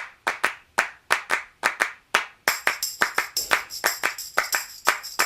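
Intro music opening on a quick handclap rhythm, about four claps a second; about two and a half seconds in a bright, high shimmer joins the claps.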